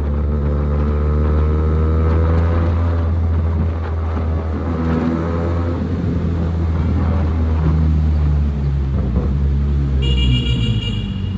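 QJMotor SRK 400 parallel-twin motorcycle engine and exhaust running under way, its note rising and easing a little with the throttle. A horn sounds briefly near the end.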